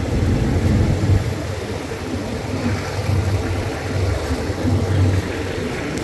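Running noise of railway passenger coaches heard from an open coach window: a steady low rumble with a throbbing hum, as the carriages of a second train pass alongside and draw away.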